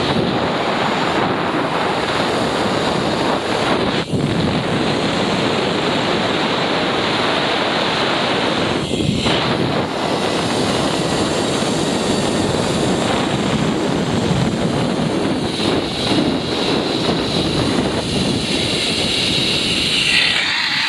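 Steady rushing wind noise on the microphone of a camera carried by a rider speeding down a zip line.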